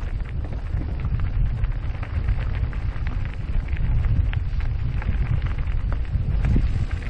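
Wind rumbling on the microphone of a camera riding on a moving e-mountain bike, with scattered crackles and clicks from the ride.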